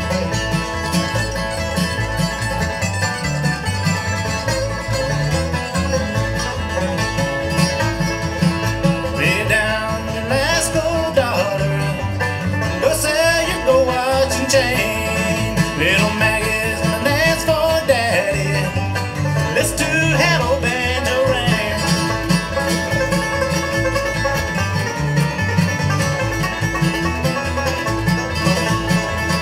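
Live bluegrass string band playing: banjo picking and acoustic guitar strumming a steady rhythm, with a gliding melodic lead line coming to the front through the middle of the passage.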